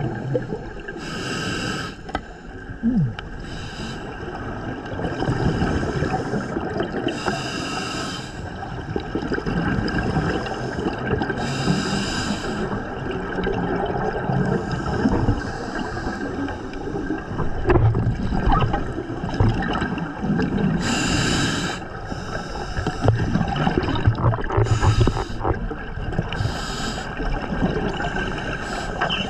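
Scuba regulator exhaust bubbles heard underwater: a short bubbling, hissing burst every few seconds as the diver exhales, over a steady low underwater rumble.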